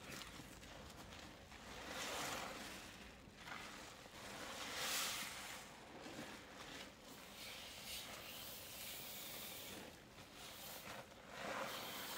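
A damp mix of cleaning powder and paste squeezed and crumbled by hand: soft crunching and hissing that swells several times, loudest about five seconds in.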